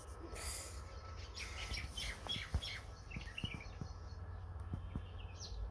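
Very young kittens giving many short, high-pitched mews and squeaks, with a few faint knocks underneath.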